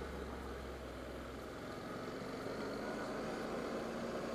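Honda NC700X motorcycle's parallel-twin engine running at low speed while riding, with a steady low note that changes about a second and a half in.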